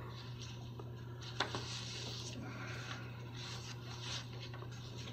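Quiet courtroom room tone: a steady low electrical hum with faint rubbing and rustling, and a single click about one and a half seconds in.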